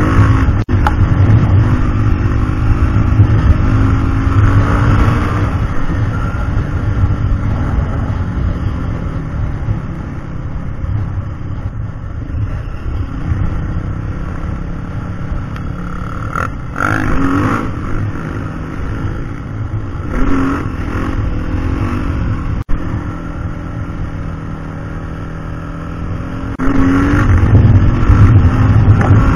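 Yamaha WR450F single-cylinder four-stroke dirt bike engine running under way, opened up in sharp revs a few times, and louder and harder-revving near the end.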